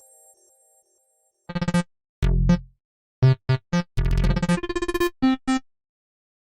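Stock Android 8 Oreo ringtone: a short synthesized melody of clipped electronic notes. It starts about a second and a half in, once the previous tone has faded out, and breaks off near the end before starting over.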